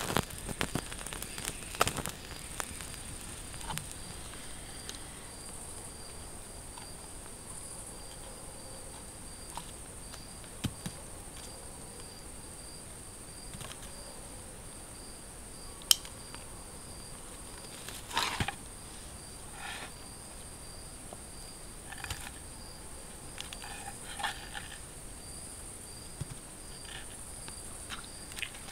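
Night insects chirping steadily, a high continuous trill with an evenly pulsing chirp beneath it. Small crackles from the wood stove's fire come in the first couple of seconds, and a few sharp clicks and knocks of handling follow, the loudest about sixteen and eighteen seconds in.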